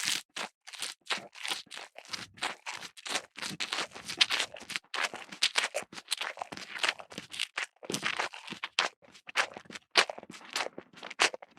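A cow grazing: grass torn and chewed in quick, irregular crunches, several a second, with no mooing.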